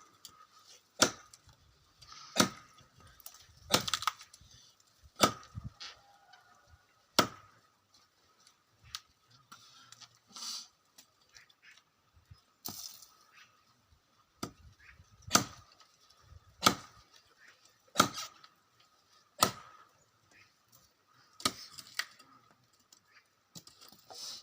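Axe chopping wood: sharp strikes about every second and a half, with a pause of a few seconds in the middle before the blows resume.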